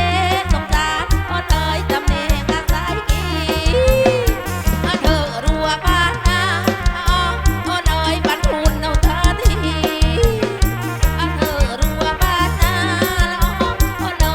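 Live kantrum, the Khmer-Thai folk music of Surin, played loud through a PA sound system. A regular drum beat runs under wavering, pitch-bending melodic lines.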